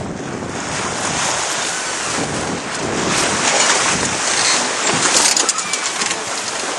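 Sea rushing and splashing along the hull of a small sailing yacht under way in choppy water, with wind buffeting the microphone. It swells louder and gustier about halfway through, with a few sharp buffets.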